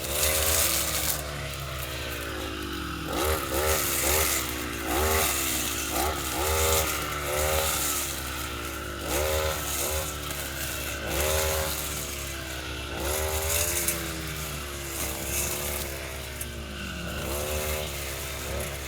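Petrol lawnmower engine running while clearing a garden, its pitch rising and falling over and over.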